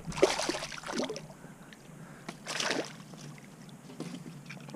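Lake water sloshing and splashing at a rocky shoreline as a hand moves at the surface, in short noisy bursts near the start and again about two and a half seconds in.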